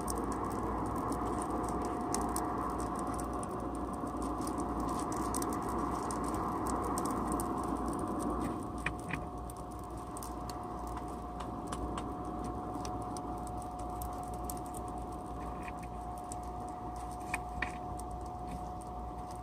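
Coal forge's air blower running steadily with a constant whine and rush, under a patter of small clicks and crackles as the coal fire is raked. The rushing layer eases off about eight seconds in.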